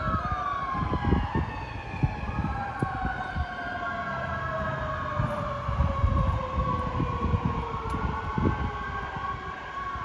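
Siren wailing, several overlapping tones sliding slowly down in pitch, with irregular low rumbling underneath.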